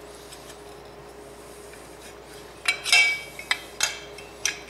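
Steel engine-mount brackets clanking on a wooden workbench as they are handled and set down: a cluster of ringing metal clanks about three seconds in, then a few lighter clicks.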